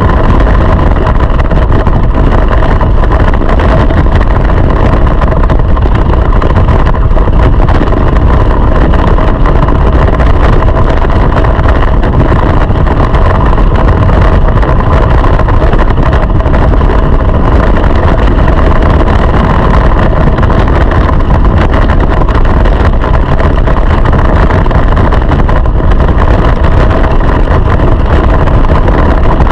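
Go-kart engine running hard and near-constantly, recorded loud from on board the kart, with wind buffeting the microphone as a heavy low rumble.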